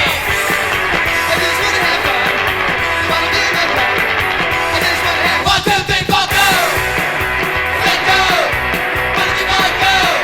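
Punk rock song played from a vinyl record: driving electric guitars and drums at a steady loud level, with a shouted vocal line in parts.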